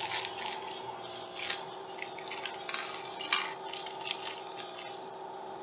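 Small plastic LEGO pieces clicking and clattering as they are handled and fitted, in irregular sharp clicks that stop near the end.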